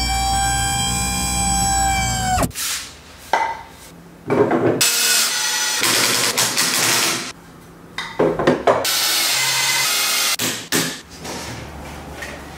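Woodworking power tools at work: a steady motor whine that cuts off about two and a half seconds in, then several separate spells of loud cutting or drilling noise, each a second or so long.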